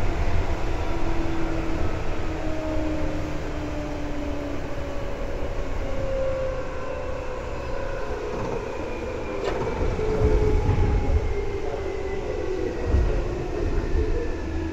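Seibu 2000 series electric train running, heard from inside the car above the line breaker. Several tones of traction-motor whine glide slowly downward over a steady rumble, as when the train slows. There is one sharp click about two-thirds of the way through.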